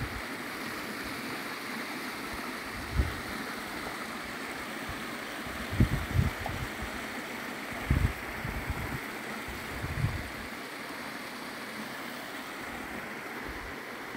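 Small mountain stream running over rocks: a steady rush of water. A few short low thumps come through in the middle.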